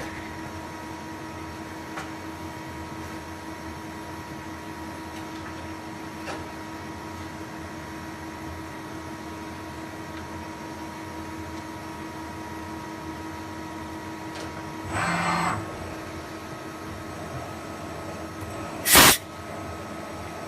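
CNC turning center running steadily through an automatic deep-drilling cycle: a constant machine hum with a held whine. About three-quarters of the way through comes a brief buzzing burst, and the whine stops there. Near the end there is one short, loud burst of noise.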